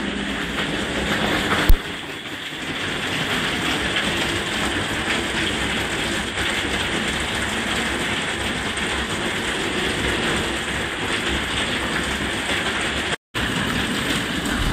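Torrential rain pouring down in a steady, dense hiss, with one sharp knock about two seconds in.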